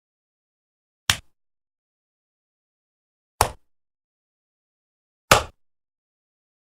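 Three single slap sound effects, each a sharp smack that dies away within a fraction of a second, spaced about two seconds apart with silence between.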